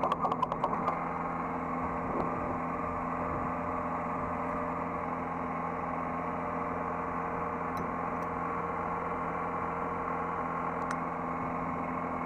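Hydraulic excavator's diesel engine idling, heard from the operator's seat. A rapid even pulsing stops about a second in, leaving a steady, even hum.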